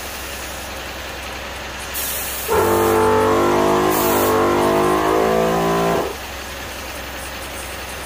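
Kings Thumpermax dual air compressor running under load while pumping up a ball: a loud, slightly wavering motor whine that starts about two and a half seconds in and stops about six seconds in. There are two short hisses, one just before it starts and one in the middle of the run.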